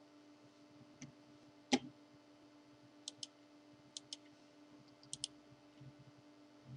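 Computer mouse clicks: one sharper click a couple of seconds in, then three quick pairs of clicks, over a faint steady hum.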